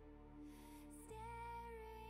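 Quiet background music: slow, soft melody notes held over sustained low chords, with the bass coming in stronger about a second in.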